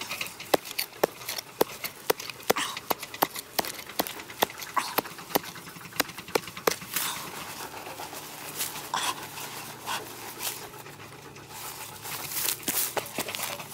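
Small hand hoe with a wooden handle chopping into dry, clumpy soil: a rapid series of sharp knocks, about three a second, for the first half, then looser scraping and scattered knocks of dirt being pulled aside.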